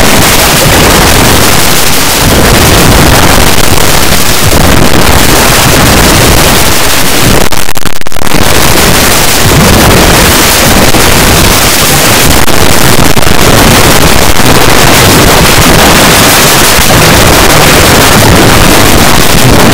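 Song audio pushed into extreme overload and clipping as an 'earrape' edit, heard as a constant, very loud wall of harsh distorted noise with only a brief dip about eight seconds in.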